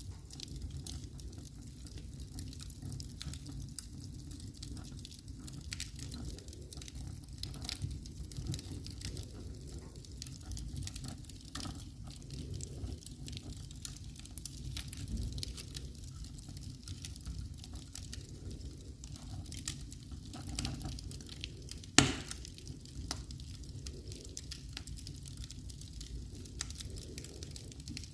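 Wood fire crackling in a fireplace: scattered snaps and pops over a low steady rumble, with one sharp, loud pop about three-quarters of the way through.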